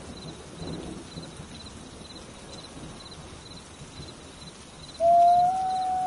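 A wolf howl starts about five seconds in: one loud, long note that rises slightly and then holds. Before it there is only a faint outdoor hiss, with a soft high chirp repeating about twice a second.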